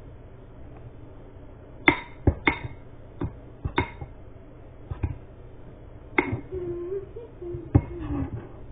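Spoon knocking and clinking against a bowl in about a dozen irregular sharp taps while a toothpaste and baking soda paste is stirred.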